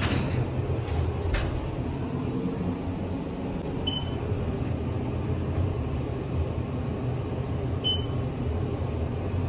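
Elevator car travelling down, with a steady low hum from the ride. A couple of knocks come in the first second and a half, and two short high beeps come about four seconds apart as the car passes floors.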